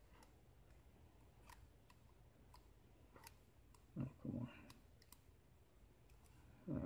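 Faint, scattered small metal clicks of a hand tool working against a Euro lock cylinder. There are two brief louder low sounds about four seconds in and another right at the end.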